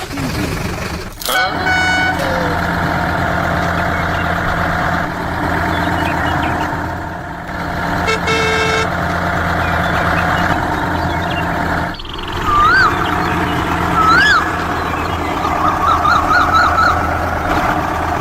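A truck engine running steadily. Two short whistle-like toots rise and fall about 13 and 14 seconds in, and a quick warbling run of them follows near the end.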